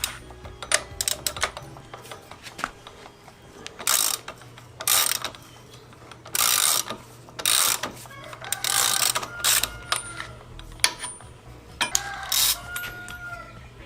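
Ratchet wrench working on the motorcycle's rear wheel as it is taken apart: short runs of rapid ratchet clicking, several in a row, between scattered clicks and clinks of tools on metal.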